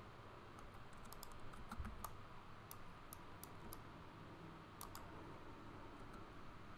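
Computer keyboard keys and mouse buttons clicking: a dozen or so faint, scattered clicks, some in quick pairs, over a low steady hiss.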